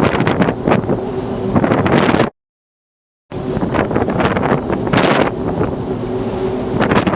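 Wind buffeting the microphone in loud, gusty rumbles and crackles. The sound cuts out completely for about a second a little past two seconds in, then resumes.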